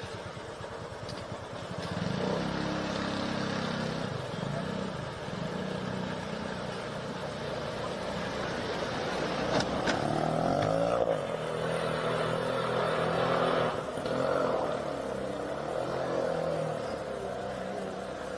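Small motor vehicle's engine running and revving, its pitch rising and falling, as it drives through floodwater over a steady wash of churning water. The engine comes in about two seconds in.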